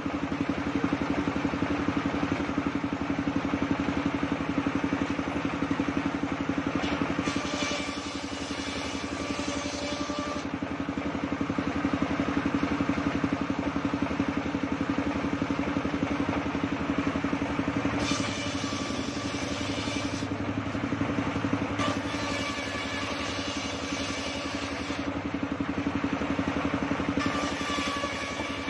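Engine-driven circular table saw running steadily, its blade ripping long planks of waru wood. Several cuts of a few seconds each add a higher, rougher sawing sound over the steady hum of the engine and spinning blade.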